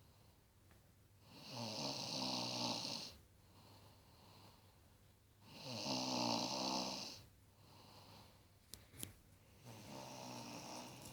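A woman snoring in her sleep. There are three long snores about four seconds apart, each a low rattle with a breathy hiss, and quieter breaths between them. A couple of small clicks come between the second and third snores.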